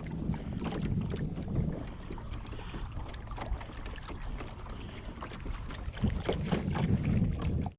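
Wind rumbling on the microphone, gusting stronger at the start and again near the end, with scattered small clicks and knocks from the kayak.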